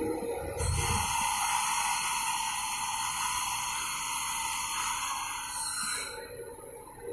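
CNC machining centre running a drilling cycle: a steady hiss starts about half a second in and cuts off about six seconds in, over a faint high steady tone.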